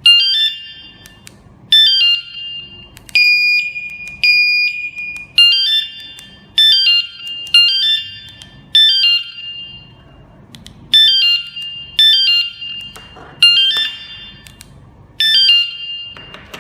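KS-SF22R vehicle alarm unit sounding a run of about ten short, loud chirps, each a quick falling stepped tone, with two longer steady beeps about three and four and a half seconds in. The two beeps are the signal that a new remote has been paired.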